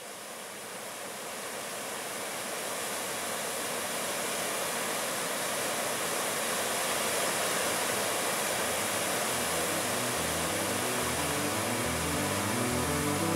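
Steady rushing of white-water river rapids, fading in and growing louder over the first few seconds. Music with low stepped notes comes in about ten seconds in.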